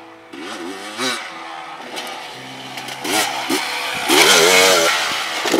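Two-stroke dirt bike engine revving in repeated quick blips, the pitch rising and falling as the rider works the throttle over the jumps. It is loudest about four seconds in, as the bike comes close past the camera.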